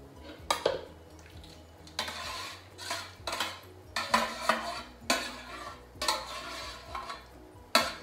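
A utensil scraping and clinking against a ceramic baking dish as cooked lamb mince is scraped out into a slow cooker: a string of short scrapes and knocks, the sharpest knock near the end.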